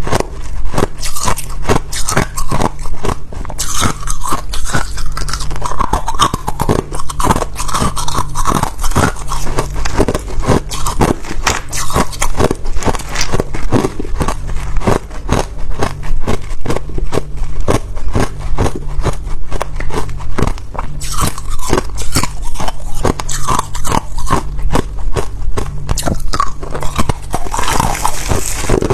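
Ice being bitten and chewed close to the microphone: loud, rapid crunching and cracking, one crunch after another without a break.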